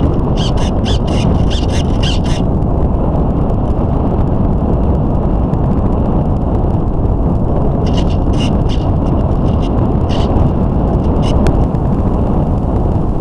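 Loud steady rush of airflow and motor noise picked up by the onboard camera of a radio-controlled model aeroplane in flight, with short runs of faint crackling clicks.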